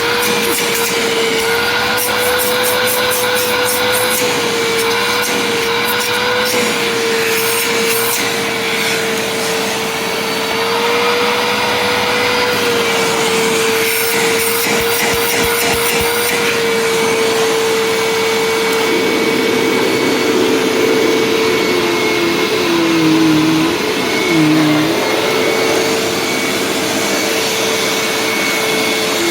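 Hoover WindTunnel Supreme U5456-900 upright vacuum running with a steady motor whine. Its pitch wavers a few times and dips twice near the end, briefly getting louder each time.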